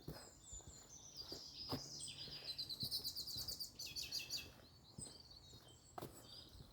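A songbird singing faintly: high chirps building into a fast, rapid trill for a couple of seconds, then a few more short notes. A few faint footsteps on the path come and go beneath it.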